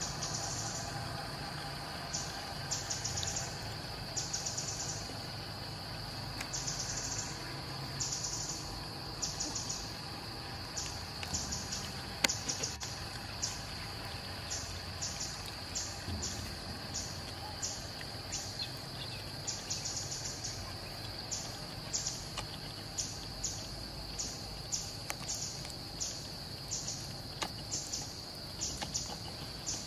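Outdoor insect chorus: a continuous high-pitched ringing with shorter, higher pulses that switch on and off irregularly over it. One sharp click stands out about twelve seconds in.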